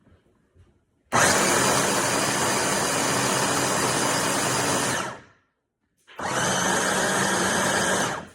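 Homeleader 300 W electric food chopper running in two bursts while chopping an apple in its glass bowl. The motor starts sharply about a second in, runs steadily for about four seconds and winds down, then runs again for about two seconds.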